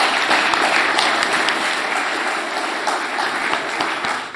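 Audience applauding steadily: many hands clapping together.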